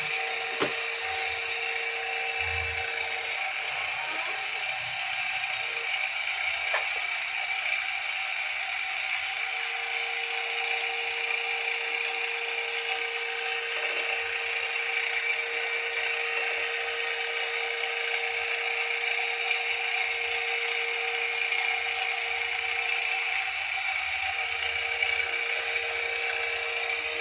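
Hot-melt glue book-binding machine running: an even motor hum with a constant whine and a hissing top, broken by a few light clicks.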